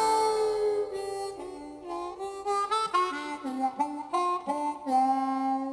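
Background music: a harmonica playing a melody of short stepping notes, ending on a long held note.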